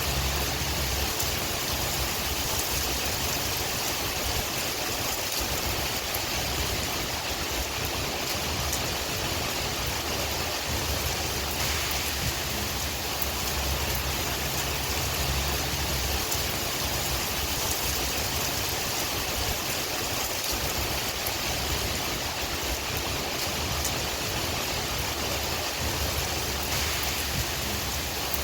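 Steady rain with wind, a continuous even hiss over a low rumble.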